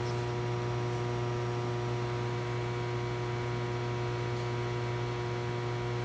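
Steady electrical hum: a low buzz with several fainter steady tones above it, unchanging throughout.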